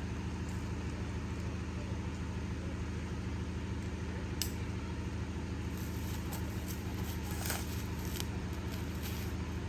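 Engine idling steadily, with a couple of faint clicks partway through.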